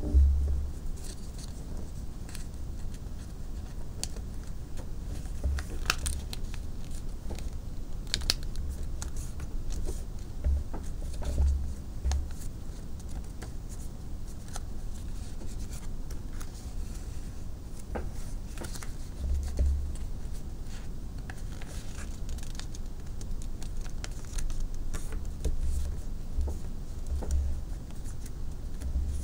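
A sheet of paper being folded and creased by hand, with irregular crinkles and crackles as the folds are pressed flat. There are occasional low bumps from hands on the table.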